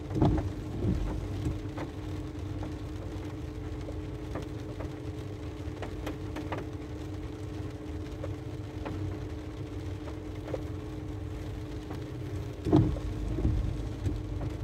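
Rain pattering on a car's roof and windscreen, heard from inside the cabin, as scattered sharp ticks over a steady hum from the car. A few louder thumps come about a second in and again near the end.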